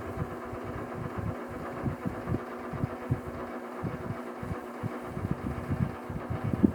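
1972 General Electric Vortalex table fan running: a steady motor hum with irregular low buffeting from its airflow.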